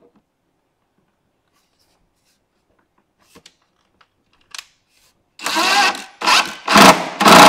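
Cordless drill/driver motor running in four short, loud bursts starting about five and a half seconds in, driving a screw through a drawer slide into the cabinet side. A few faint clicks come before it.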